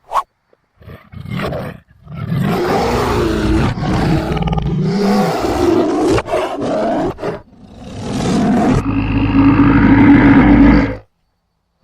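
Loud tiger roaring: a short burst, then long roaring stretches that waver in pitch, the last one rising and holding steadier before it cuts off suddenly near the end.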